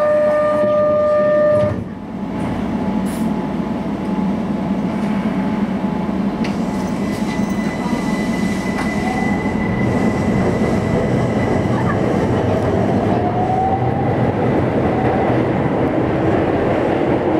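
Keihan 800 series electric train pulling out of a subway station under automatic train operation, heard from the driver's cab. A steady chime tone cuts off about two seconds in, then the running rumble sets in and the traction motors give a faint rising whine as the train gathers speed.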